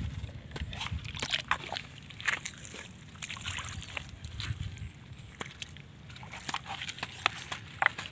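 Water sloshing in a handheld plastic bottle, with scattered clicks and crackles of the plastic being handled. The water is for pouring with calcium carbide into a rat burrow.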